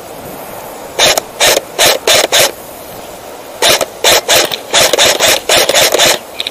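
Footsteps crunching on sand and gravel, a quick even run of about three steps a second. They start about a second in, stop briefly near the middle, then carry on.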